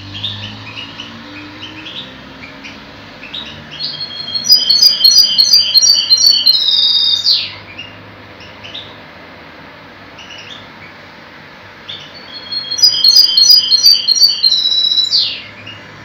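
A caged misto, a hybrid finch, singing two phrases of song about eight seconds apart. Each is a rapid run of repeated high notes ending in a steeply falling sweep.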